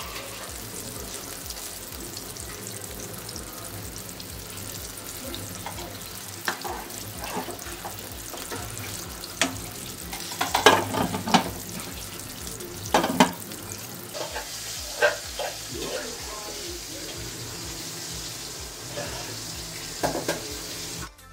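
Flour-coated chicken drumsticks deep-frying in hot oil: a steady sizzle with sharp crackling pops and spatters, loudest in clusters about halfway through.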